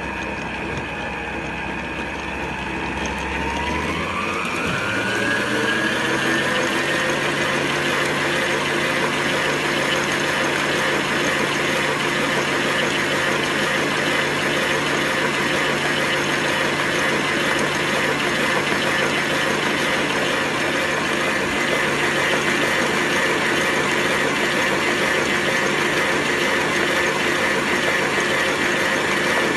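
Electric stand mixer running its flat beater through cake batter in a steel bowl. The motor whine rises in pitch about four seconds in as it speeds up, then runs steady at the higher speed.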